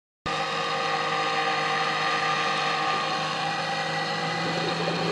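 Steady mechanical hum of several constant pitches over a hiss, heard underwater. It starts about a quarter second in.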